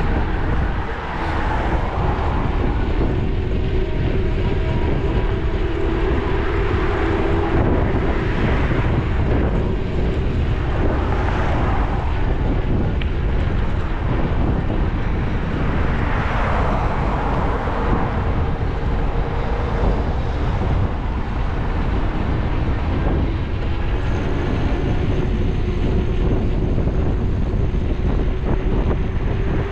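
Steady road and engine noise of a car driving along a city street, with several louder swells as other traffic passes.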